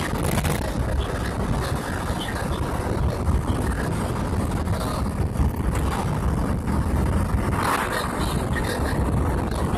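Steady rumble of a car driving along a road: engine and tyre noise heard from inside the moving vehicle.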